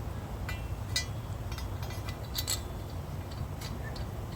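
Scattered light metallic clinks and ticks as a mower blade and its hardware are handled and fitted onto a new deck spindle, over a steady low hum.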